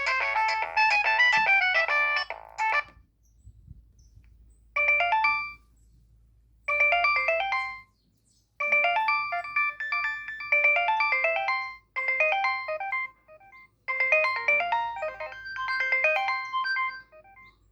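Nokia 3120 mobile phone playing its ringtones: one melody ends about three seconds in. After a short pause a new electronic melody starts, in short repeated phrases broken by brief gaps.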